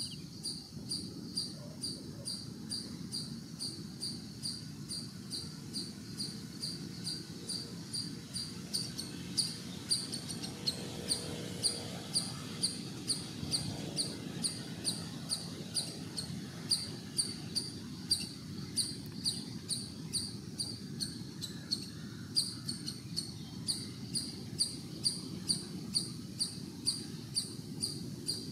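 A cricket chirping steadily, about three short high chirps a second, over low background noise.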